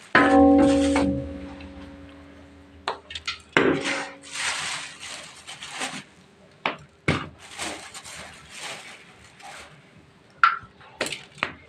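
A short ringing tone at the start that fades away, then hand-milking a cow: milk jets squirting into a pail in quick hissing strokes, about two a second.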